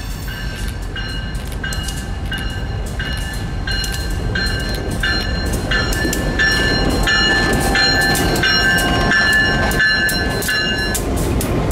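Diesel freight locomotive's bell ringing steadily, struck a little under twice a second. Under it, the engine rumble of the approaching train grows louder as the locomotives pass close by.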